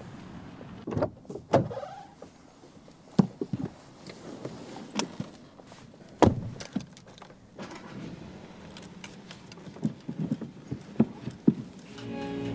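A passenger getting into the back of a car, heard from inside the cabin: a string of clicks, knocks and rustles from the rear door and seat, the loudest a door shutting with a thud about six seconds in.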